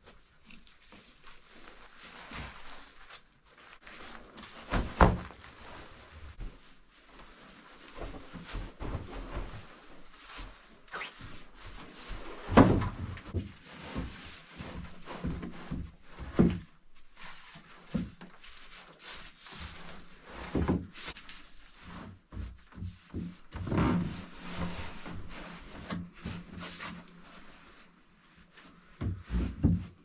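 Building a tarp-and-pole camp bed by hand on a straw floor. Straw, rope and canvas rustle, broken by a series of hard wooden knocks as the poles are moved and set down; the loudest come about 5, 12 and 24 seconds in.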